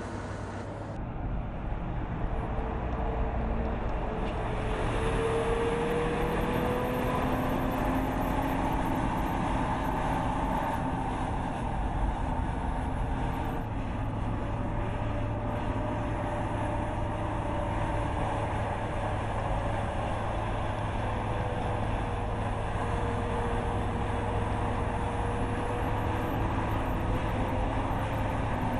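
Mercedes-Benz Actros truck driving on the road: its diesel engine runs with tyre and road noise. The level rises over the first few seconds, then holds steady, with a faint hum that slowly drifts up and down in pitch.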